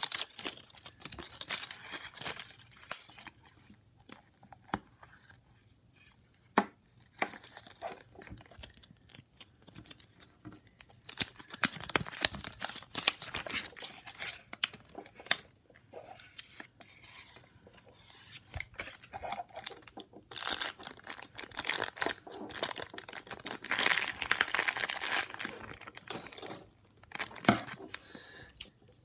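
A plastic surprise capsule and its wrappers being handled and opened: irregular crinkling and tearing of thin plastic and paper, with sharp clicks and knocks of the hard plastic capsule halves. It goes nearly quiet for a couple of seconds about four seconds in, and the crinkling is densest in the second half.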